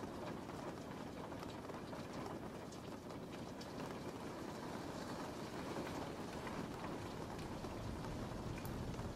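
Steady rain falling, an even hiss with scattered single drops ticking through it.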